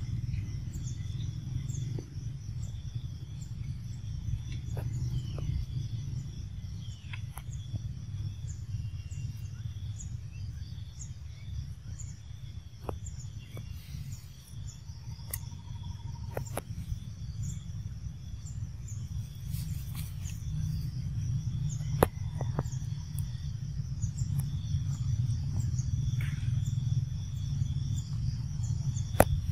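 Outdoor ambience: a steady low rumble under a thin, steady high insect drone, with short high chirps repeating about once a second. A couple of sharp clicks come about two-thirds of the way in and near the end.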